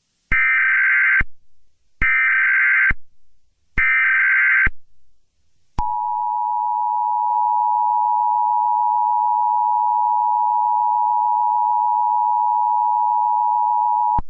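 Emergency Alert System tones: three short buzzy bursts of SAME header data, then the steady two-tone attention signal held for about eight seconds.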